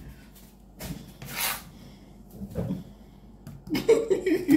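Scattered kitchen handling noises: a few light knocks and a short sliding swish about a second and a half in, like a cupboard or drawer being worked.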